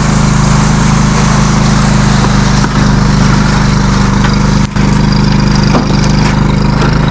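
Small engine of a DIY concrete mixer running steadily, with a brief dip about two-thirds of the way in.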